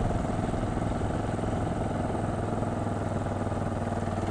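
KTM 690 Duke's single-cylinder engine running steadily with an even pulse under way.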